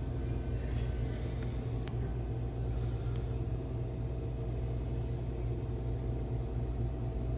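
Pizza vending machine running with a steady low mechanical hum while it prepares an ordered hot pizza, with a few faint clicks.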